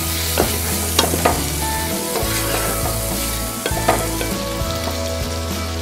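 Chunks of cauliflower, potato and peas sizzling as they fry in oil in a non-stick pot, stirred with a wooden spatula that knocks and scrapes against the pot a few times.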